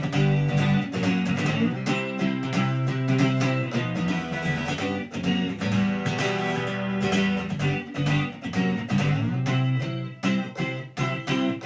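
Guitar music with no singing: chords strummed in a steady rhythm.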